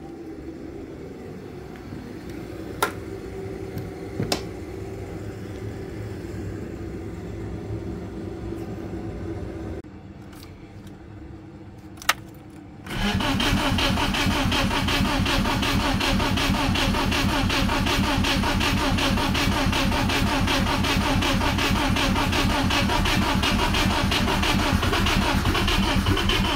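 A low steady hum with a few sharp clicks, then, about thirteen seconds in, the BMW E36's M42 four-cylinder engine is cranked over by the starter, a loud, evenly pulsing sound that keeps going.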